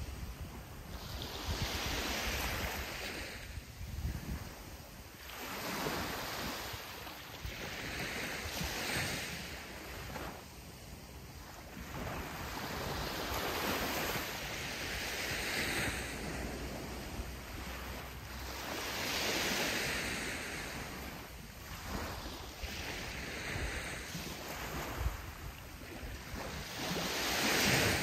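Sea waves breaking and washing up a sandy beach. The surf swells and fades every few seconds, and the loudest wave comes near the end.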